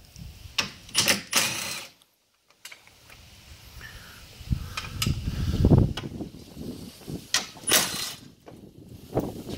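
A few sharp metallic clicks of a socket and tools being handled, then a cordless driver fitted with a socket running for about two seconds near the middle, backing out the 13 mm bolts that hold the top of a pickup's active grille shutter assembly. Another sharp click comes near the end.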